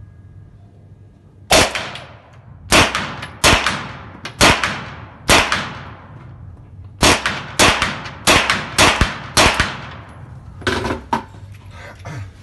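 Carbine fired at an indoor range: two strings of five shots, each string spread over about four seconds with a short pause between, every shot ringing off the range walls. Two fainter bangs follow near the end.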